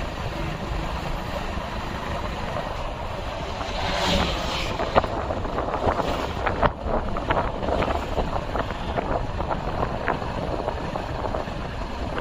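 A motor running steadily underneath, with wind buffeting the microphone and small rattles over it.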